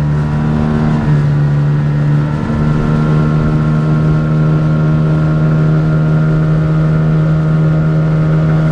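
Two-stroke outboard motor pushing an inflatable dinghy along at a steady speed, its engine note holding one even pitch.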